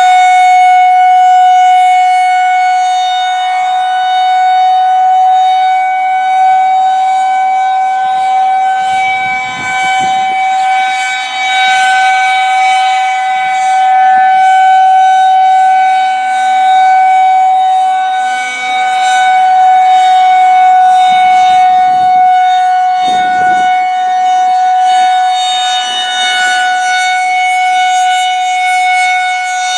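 Federal Signal 2001-130 rotating outdoor warning siren sounding its test at a steady pitch, one loud held tone with no wind-up or wind-down. The loudness swells and dips every several seconds as the siren head turns.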